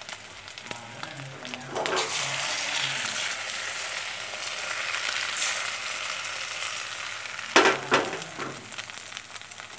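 Beaten egg for an omelette frying in a pan, a hissing sizzle that swells about two seconds in, holds, and fades near the end. Two sharp knocks come near the end.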